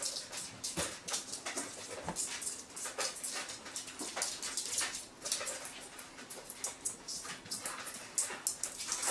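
Chihuahua puppy whimpering amid a quick run of short rustling and scratching noises as she is handled on a fabric pad.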